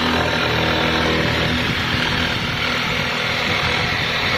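Corded electric jigsaw running steadily as it cuts along the wooden top edge of a plywood boat-hull panel.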